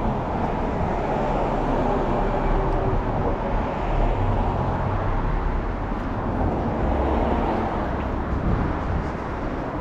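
Steady road traffic noise from cars on the street beside the sidewalk, a continuous low rumble that swells slightly a few times without any single distinct event.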